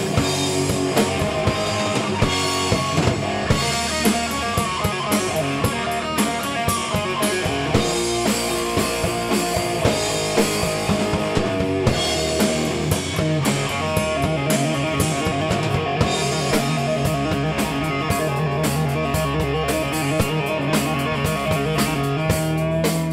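Live rock band playing: electric guitar over bass guitar and a drum kit, with steady, regular drum and cymbal hits.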